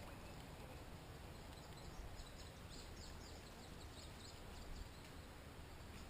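Faint outdoor background with a small bird singing a quick run of short, high chirps, starting about two seconds in and stopping a second before the end.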